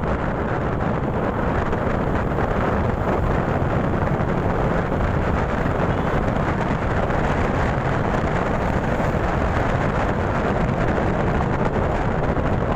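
Steady wind rush on the microphone over the running of a motorcycle on the move, with engine and road noise mixed into an even roar.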